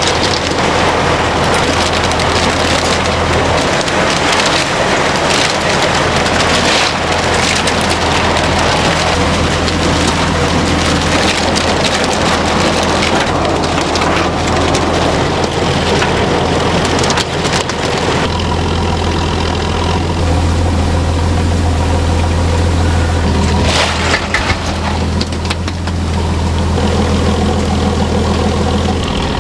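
A heavy engine running steadily with a low hum, under a loud rushing hiss. About two-thirds of the way through the hiss drops back and the engine hum stands out more, with a few sharp clatters near the end.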